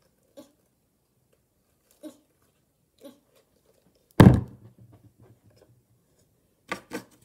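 A single loud thump about four seconds in, with a short low ring after it, among a few faint taps; two sharp clicks follow near the end.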